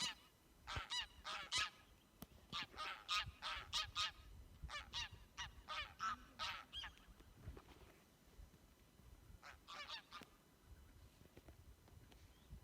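A flock of geese honking: quick runs of overlapping calls for the first seven seconds or so, a pause, then a few more honks about ten seconds in.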